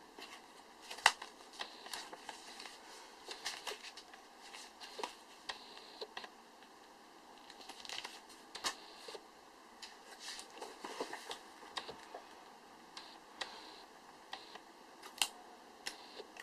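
Scattered clicks, taps and short crinkling rustles as a boxed phone and its packaging are handled and unpacked. The sharpest click comes about a second in.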